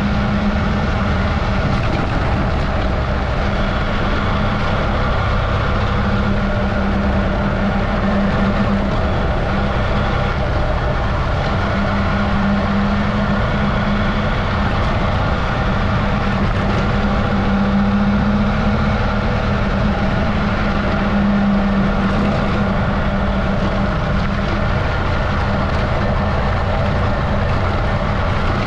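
Adventure motorcycle engine running at a steady, unchanging pitch while riding a dirt road, over a constant low rumble of wind and road noise.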